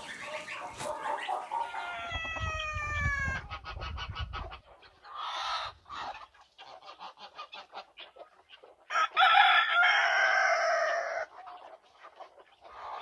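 Rooster crowing twice: a first crow about two seconds in, and a louder, longer crow about nine seconds in. Shorter clucking calls come between the crows.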